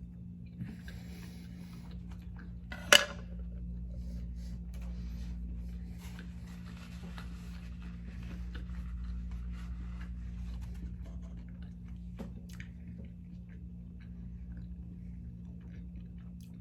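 Close-miked chewing of a sushi roll coated in crushed Flamin' Hot Cheetos, with crackly crunching bites and one sharp, loud click about three seconds in. A steady low hum runs underneath.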